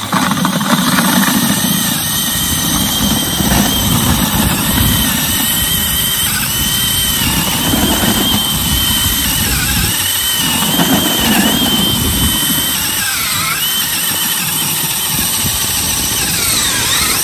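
Cordless drill spinning an ice auger, boring a fishing hole through lake ice: a steady motor whine over the grinding of the auger, the whine dipping in pitch several times as the drill slows under load, most deeply near the end.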